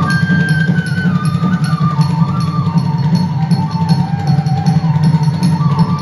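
Carnatic dance accompaniment music: a melody moving in held steps and small glides over a low drone and percussion, with a regular ticking beat about four times a second.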